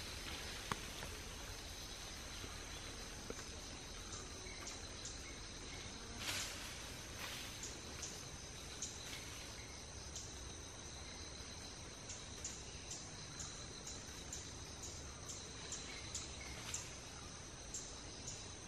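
Tropical forest ambience: a steady high-pitched insect drone, with short high chirps repeating about twice a second through the second half and two brief noisy bursts about six and seven seconds in.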